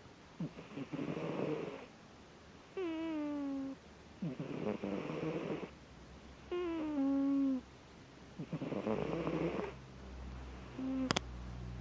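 Sleeping kitten snoring: a whistling tone that slides slightly downward alternates with a rattling snore, the cycle repeating about every four seconds. A sharp click near the end.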